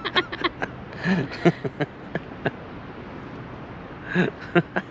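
Short, indistinct snatches of people's voices and a few sharp clicks, over a steady outdoor background hiss.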